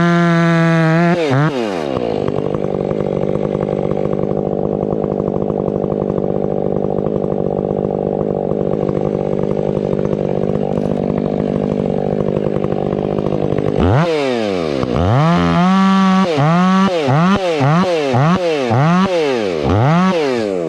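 Stihl 500i fuel-injected two-stroke chainsaw running at high revs, dropping to idle about a second in. It idles steadily for around twelve seconds, then is revved up and down about six times in quick succession before settling back to idle near the end.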